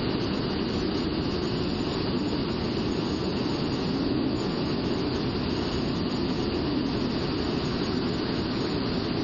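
Steady rush of jet engine and airflow noise inside a flying F/A-18 fighter's cockpit, a deep even roar with no change in pitch.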